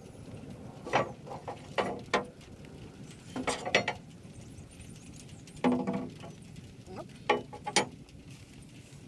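Irregular sharp metal clanks with a brief ring, steel striking steel at a rotary cutter's blade assembly: a hammer knocking at a blade that is stuck and won't come out. The strikes come singly and in short clusters, about ten in all.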